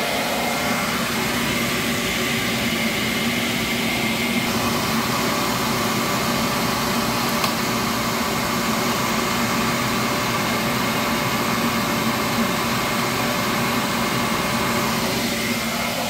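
Beckett commercial gas burner's blower running steadily through its start-up sequence with the gas valve shut, so it runs without a flame. The tone of the noise shifts about four and a half seconds in.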